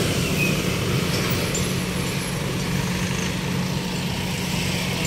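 A motor engine running steadily with a low, even hum, over general street traffic noise.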